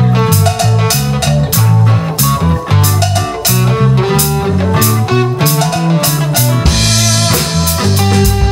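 A live folk-rock band playing an instrumental passage: guitar and low bass notes over a steady drum-kit beat.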